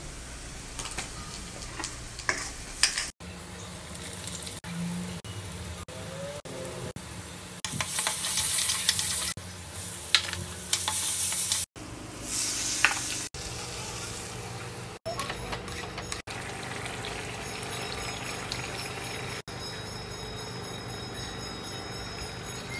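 Masala and soya chunks sizzling in oil in an iron kadhai, with a spatula stirring and scraping against the pan and a few sharp knocks early on. The sizzle flares up loudest twice, about 8 and 10 seconds in. The sound breaks off abruptly several times at edits between clips.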